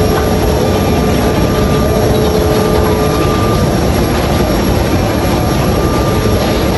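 Loud, steady jet aircraft noise on an airport apron: a dense rumble with a thin steady whine over it. The lower note of the whine drops out about three and a half seconds in.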